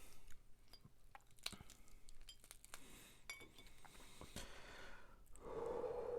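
Faint clinks and taps of utensils against dishes and glass, a scattering of small sharp clicks. About five seconds in, a steady rushing noise begins.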